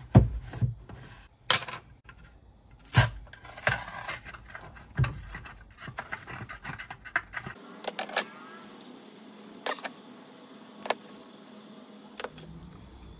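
Metal spoon scraping and clicking inside a plastic peanut butter jar as peanut butter is scooped out, with scattered sharp clicks and knocks from the jar and lid being handled.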